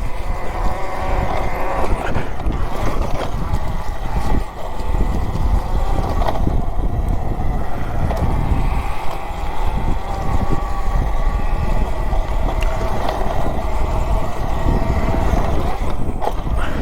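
Riding a 72 V Talaria Sting electric dirt bike on a dirt trail: wind rushes over the microphone under a steady electric-motor whine, with a few brief knocks as the bike goes over bumps.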